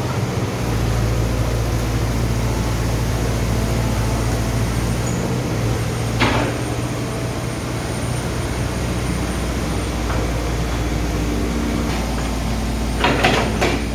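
Hitachi 110 excavator's diesel engine running steadily at idle, with a sharp knock about six seconds in and a quick cluster of knocks near the end.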